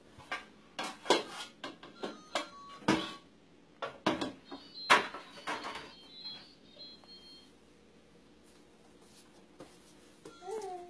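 Scattered clinks and knocks of dishes being handled at an open dishwasher, frequent for the first few seconds and then sparse.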